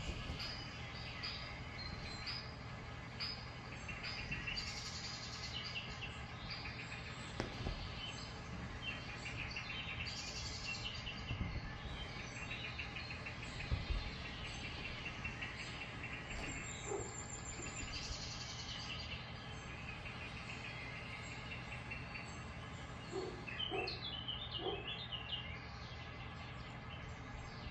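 Continual bird-like chirping and twittering over a steady low hum.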